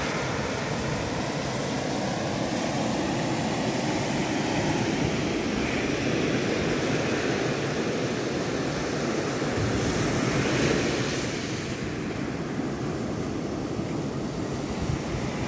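Ocean surf breaking and washing up onto a gravel beach: a steady rushing noise that swells briefly around ten seconds in.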